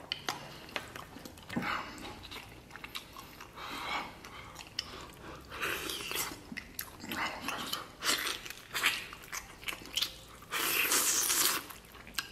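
Close-up eating sounds: chewing noodles, then biting and gnawing braised meat off a pork leg bone, with many small wet clicks and smacks and a louder burst of noise near the end.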